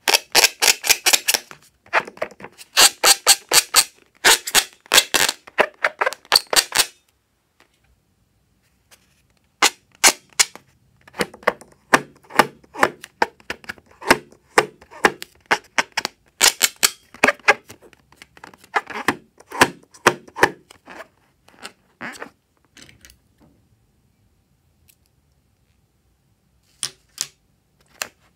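A filled rubber balloon being squeezed and rubbed by fingers, its skin squeaking and crackling in quick runs of sharp clicks. The clicks come in dense bursts for the first several seconds, again for a long stretch in the middle, then only now and then.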